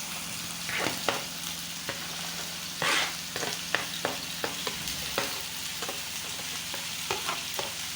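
Chopped leek, spring onion, green peas and carrots sizzling in hot vegetable oil while being stirred, with a steady hiss and irregular scrapes and knocks of the stirring utensil against the pan, the loudest about three seconds in.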